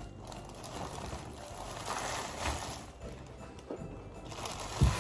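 Thin plastic bags crinkling and rustling as they are handled and pulled open, with a dull thump near the end.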